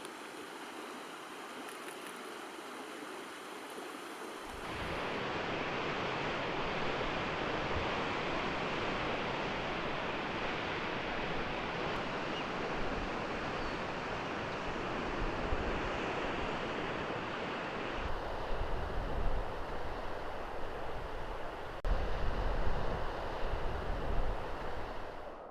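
Ocean surf washing in a steady hiss, heard in several spliced takes that change abruptly; the later takes carry irregular low rumbling surges.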